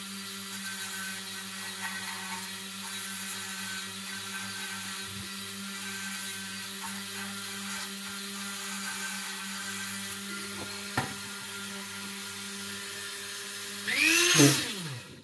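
Dremel rotary tool running steadily, its small grinding bit cleaning excess solder off a brass model tender with a high whir and a hiss of grinding. A louder burst with the pitch sliding up and down comes near the end, then the sound stops abruptly.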